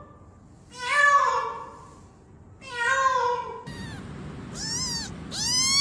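Domestic cat meowing repeatedly: two drawn-out meows, then, over a louder background, two higher meows that rise and fall in pitch.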